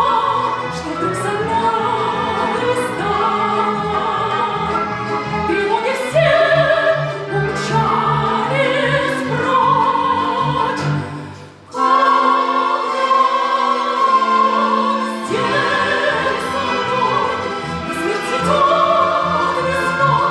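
Operatic singing with classical instrumental accompaniment. The music breaks off briefly about halfway through, then carries on.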